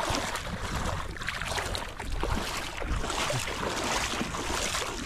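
Shallow sea water sloshing and splashing around the legs of someone wading, with wind buffeting the microphone.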